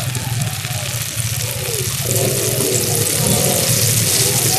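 Katlama deep-frying in a large karahi of hot oil: a steady, dense sizzle of oil bubbling around the dough, with background music.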